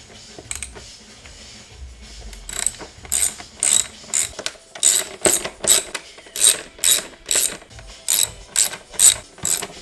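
Ratchet clicking in quick, even back-strokes, about two a second, as the screws holding an air filter housing are backed out; the clicking starts about two and a half seconds in.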